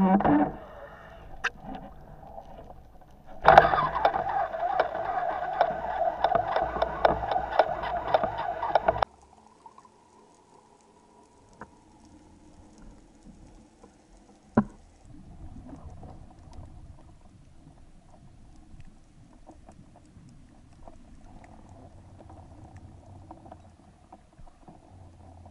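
Underwater ambience from a diving camera: faint, muffled water noise with one sharp click about halfway. Near the start, a louder stretch of several seconds cuts in and out abruptly.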